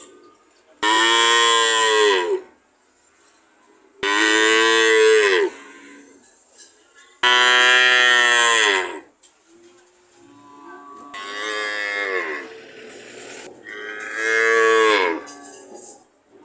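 A cow mooing: five long moos, roughly one every three seconds, each dropping in pitch at the end. The fourth moo is softer than the others.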